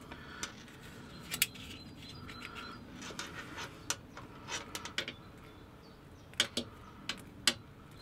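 Light, sharp clicks and taps of a small plastic battery box and its wires being handled on a hard tabletop, about a dozen at irregular intervals.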